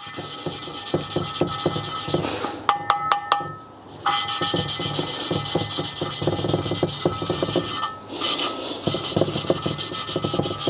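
A poppet valve is being hand-lapped into its seat in a BMW M20 cylinder head: the lapping stick is spun quickly back and forth, and the valve grinds against the seat through fine lapping compound with a gritty, rhythmic rasp. A few sharp knocks come about three seconds in, and there are two short breaks. The rasp's pitch is changing as the seat beds in.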